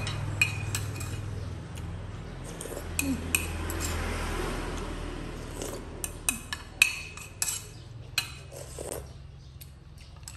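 Metal spoon clinking and scraping against ceramic bowls as someone eats from them: a dozen or so sharp, irregular clinks, most of them in the second half.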